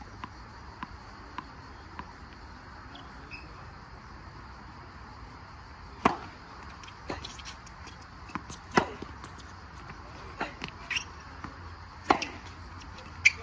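Tennis balls struck by rackets in a rally on a hard court: faint knocks at first, then sharp pops of ball on strings about six, nine, twelve and thirteen seconds in, with quieter knocks between.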